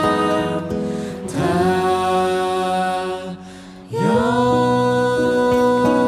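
A group of singers singing a slow song together into microphones over acoustic guitar, holding long notes. The voices break off briefly about three and a half seconds in, then come back in with a slide up into the next held note.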